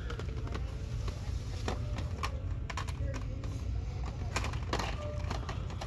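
Irregular light clicks and clacks of plastic blister-card packages knocking together and against metal pegboard hooks as a hand flips through them, over a steady low hum.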